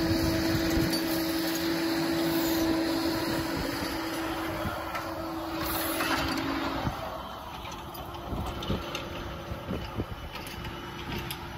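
Excavator running its hydraulic flail mower attachment, a dense mechanical noise with a steady hum. The hum cuts off about seven seconds in, leaving a quieter run with scattered clicks.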